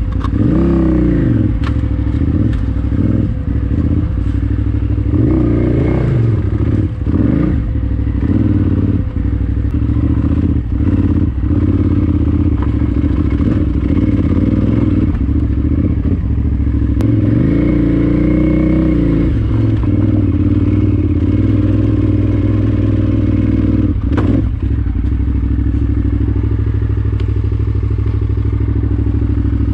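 KTM 990 Adventure R's V-twin engine with an Akrapovič exhaust, ridden off-road: the engine runs steadily, revving up and back down near the start and again past the middle. Clattering and knocks from the bike over rough ground run through it.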